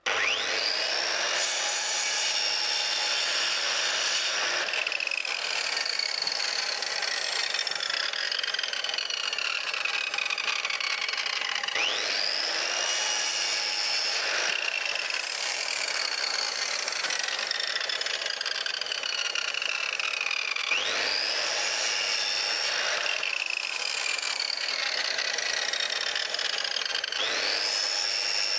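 Circular saw cutting framing pine: the motor spins up with a quickly rising whine, then its pitch sags slowly as the blade works through the timber. The saw starts again three more times.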